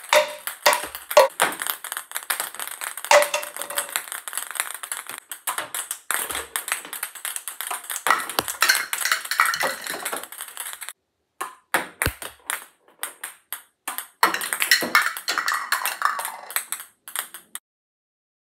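Ping pong ball bouncing and clattering on the table and hard floor, with red plastic cups being knocked over, in many quick irregular light clicks and taps. The taps stop abruptly near the end.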